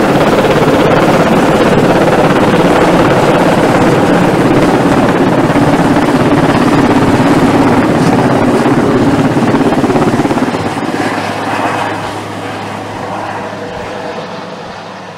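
Sikorsky S-61 helicopter overhead, its twin-turbine engines and five-blade main rotor running loud and steady, then fading from about ten seconds in as it climbs away.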